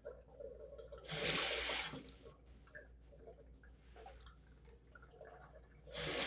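Bathroom sink faucet run in two short spurts, water splashing into the basin for about a second each, once early and again near the end, as the drain is tested.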